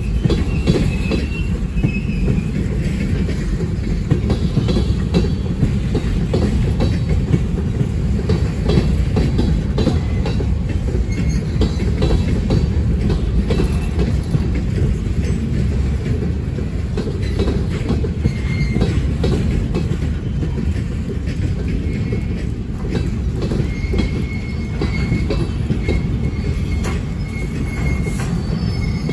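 Freight cars rolling past at close range: a steady rumble of wheels on rail with constant clicking and clatter. A thin high wheel squeal sounds in the first couple of seconds and again over the last few seconds.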